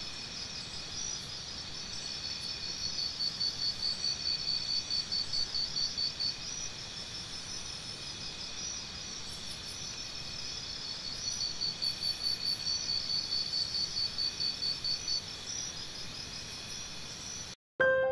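Insects chirring in a chorus of rapid, high pulsed trills that swells louder and softer in slow waves. Near the end it cuts off abruptly and piano music begins.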